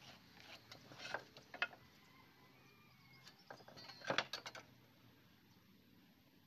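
Wooden boards and a steel try square being handled on a workbench: a few light taps and knocks, then a louder cluster of clatter about four seconds in as a board is lifted and set back down.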